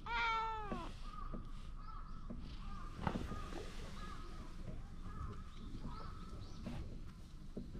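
Kitten meowing once loudly, a single call under a second long that falls in pitch, followed by faint short calls repeating in the background.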